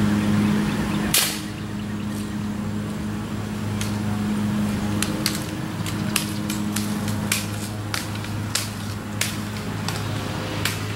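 A single sharp shot from a smoothbore gun about a second in, over a steady low machine hum. Scattered faint ticks follow during the rest of the stretch.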